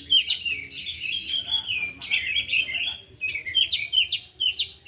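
Oriental magpie-robins (kacer) singing a rapid, varied song of quick chirps and whistled phrases, one phrase running straight into the next.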